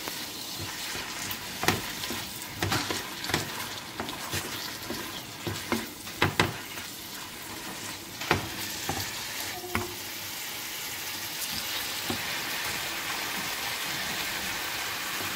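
Drumstick leaves sizzling as they are sautéed in an oiled frying pan, with a wooden spatula stirring and knocking against the pan in a run of sharp clicks over the first ten seconds or so, then a steady sizzle.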